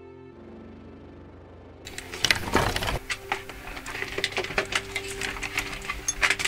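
Soft music, then from about two seconds in a rapid, irregular run of clicks and clinks from steel armor and a great-helm as the wearer shifts and moves.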